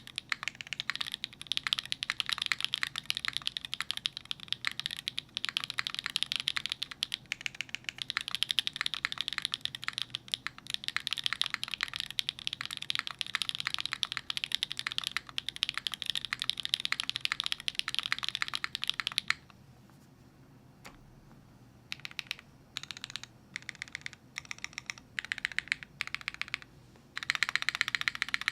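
Typing on a gasket-mounted DriftMechanics Clara mechanical keyboard with stock Gateron Deepping long-pole switches, a full aluminium plate and GMK keycaps: fast continuous keystrokes, a pause of about two seconds broken by a single keystroke, then short runs of a few keystrokes, and fast typing again near the end.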